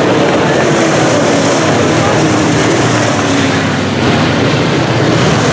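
Several UMP dirt-track modified race cars racing, their V8 engines running loud and steady, with pitch rising and falling as cars pass through the turns.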